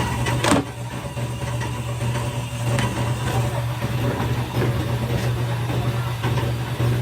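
Factory machinery running with a steady low hum, and a single sharp knock about half a second in.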